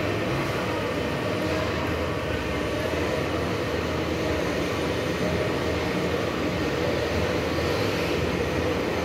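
Steady mechanical drone: a low hum under an even rushing noise, unchanging throughout.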